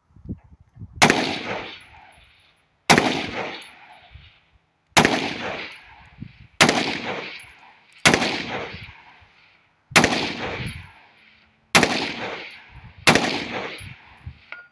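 AR-style carbine firing eight single shots, spaced roughly one and a half to two seconds apart. Each crack trails off in a long echo.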